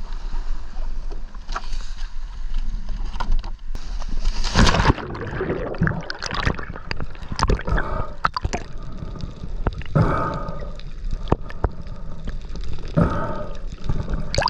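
Seawater sloshing and washing against a rock ledge, with a loud splash about four and a half seconds in as a diver in fins drops in. After it come muffled underwater gurgling and bubbling.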